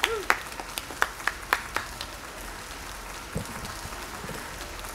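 Applause with a few sharp hand claps, tapering off within the first two seconds after a last 'woo' cheer. Then a quiet room, broken by a soft low thump about three and a half seconds in.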